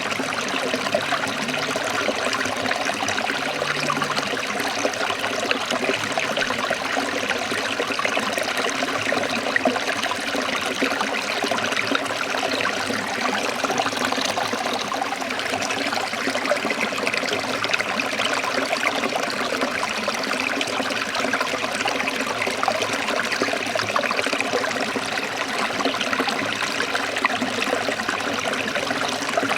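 Forest stream of water trickling steadily.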